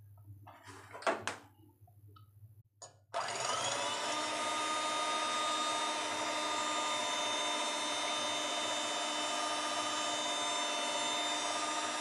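A few faint knocks, then about three seconds in an electric hand mixer switches on and runs steadily with a whine, its beaters whisking raw eggs in a glass bowl.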